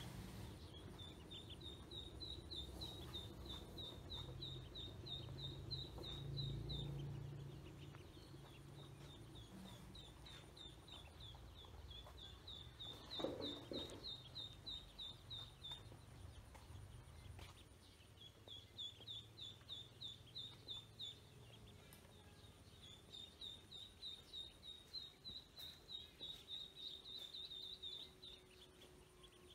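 Ducklings peeping: faint runs of rapid, high chirps, several a second, in bouts of a few seconds, over a low background rumble. About halfway through there is a brief, louder, lower-pitched sound.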